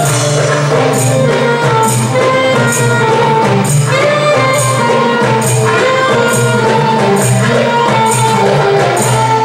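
Live Arabic ensemble music for belly dance: a saxophone plays the melody with sliding notes over a steady percussion beat marked by high jingling strokes and a sustained low part.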